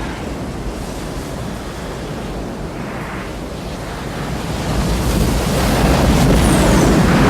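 Disaster-film sound effect: a deep, rushing roar like a huge ocean wave or blast front, swelling louder over the last few seconds.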